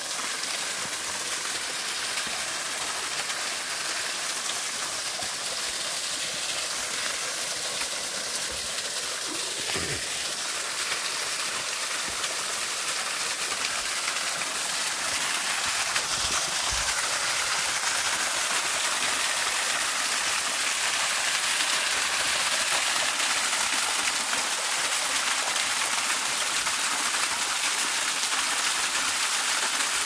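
Small waterfall splashing down over granite boulders into a shallow pool, a steady rushing of water that grows louder about halfway through as it is approached.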